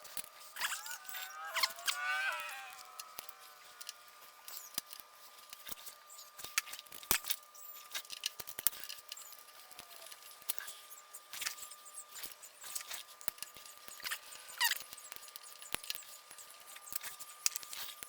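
Faint, scattered light clicks and taps of small metal parts and tools being handled while working hitch bolts in and out of their threads. About a second in there is a brief wavering squeak, and a faint steady high tone runs underneath.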